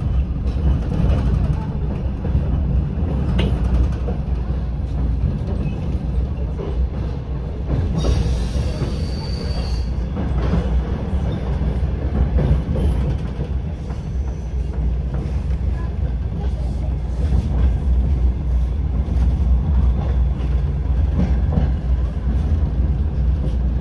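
DR1AM diesel multiple unit running along the track, heard from inside the passenger car: a steady deep rumble of engine and wheels on rails. About eight seconds in, a high hiss with a whistling tone lasts about two seconds.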